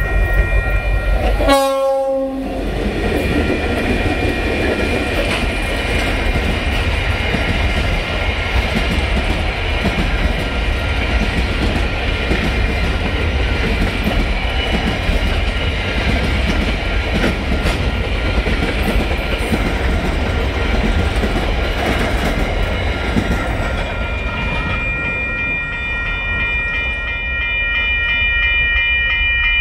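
Empty ballast wagons of a freight train rolling over a level crossing: a steady rumble with wheel clatter. The crossing's warning bell rings throughout and stands out clearly once the wagons have mostly passed, near the end. A brief horn note sounds about two seconds in.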